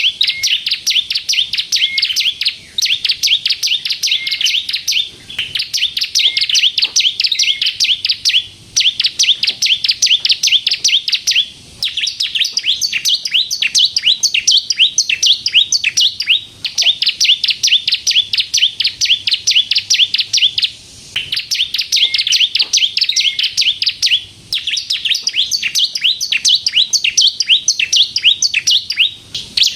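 Ciblek kristal, a prinia, singing gacor: long phrases of rapid, high chattering notes, each running a few seconds, with brief pauses between them.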